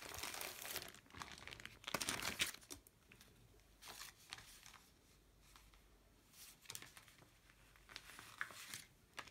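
Sheet of letter stickers crinkling and rustling as it is handled, in several short bursts, loudest in the first two and a half seconds and softer after that.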